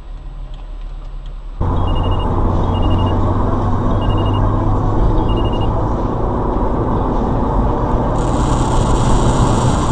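Motor vehicle running with loud, steady engine and road noise and a low hum, which jumps up suddenly about a second and a half in. A short high electronic beep sounds four times at about one-second intervals, and a loud hiss starts about eight seconds in.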